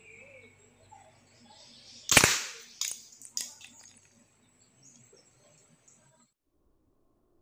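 A homemade alcohol-fuelled combustion gun firing once: a single sharp bang about two seconds in, followed by two lighter sharp clicks.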